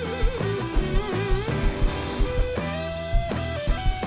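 Live blues-rock band: an electric guitar solo of bent notes with wide vibrato and one long held note, over bass guitar and drums.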